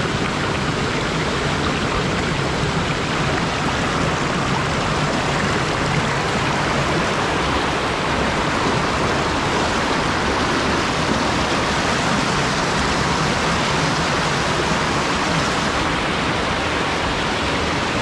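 Mountain stream water rushing over rocks in a small cascade: a steady, even rush of white water, its hiss thinning slightly near the end.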